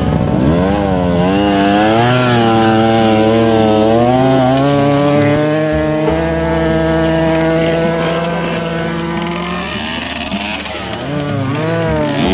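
Dirt bike engine revving. Its pitch swings up and down, holds high through the middle, then dips and climbs again near the end.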